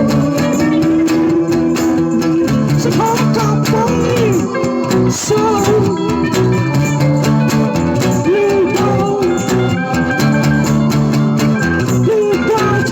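Blues-rock music: a guitar plays bending lead lines over held chords.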